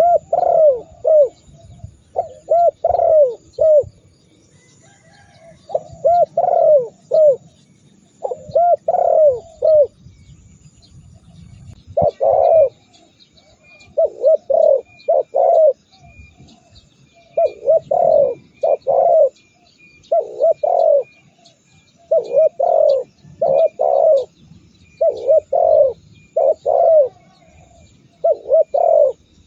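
Spotted dove cooing: short phrases of two to four coos, repeated every second or two with a few longer pauses.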